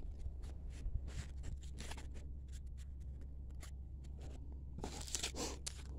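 Football trading cards and their pack wrapper being handled: light scrapes and small clicks of cards slid against each other, with louder rustling about five seconds in, over a steady low hum.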